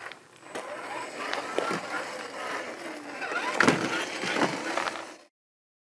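A 1/8-scale Traction Hobby KM5 G550 RC crawler driving over forest dirt and roots: its electric motor whine rises and falls in pitch with the throttle, over tyre and gravel crunching and scattered clicks. It gets louder about three and a half seconds in, then cuts off suddenly just after five seconds.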